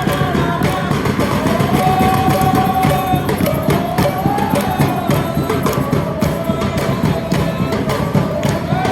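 Football supporters singing a chant together, with drums beating steadily under it.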